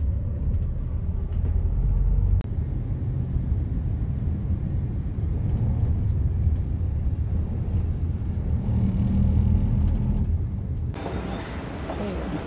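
Steady low rumble of engine and road noise inside a moving car's cabin. Near the end it changes to a brighter, hissier indoor hum around a mall escalator.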